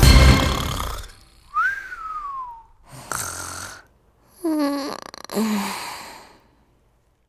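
Snoring after the song's last chord fades out: a whistling tone that rises then slides down, a short rasping breath in, and two snores that drop in pitch, the second a little weaker.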